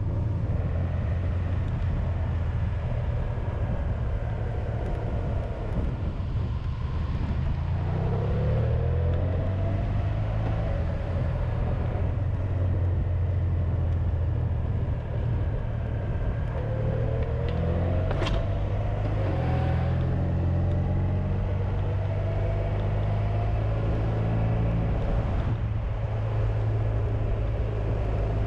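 Honda VFR1200X Crosstourer's V4 engine running under way, with a steady low rumble and wind noise. Its pitch rises twice as it pulls, about a third of the way in and again a little past the middle, with one sharp click during the second rise.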